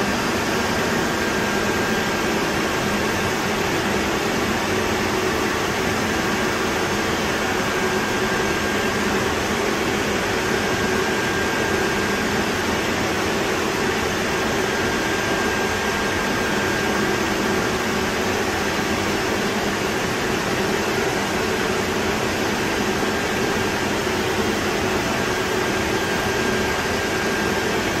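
Steady cooling-fan noise from a Cisco router chassis and the equipment rack: a constant rush with a faint, steady high whine and a low hum under it.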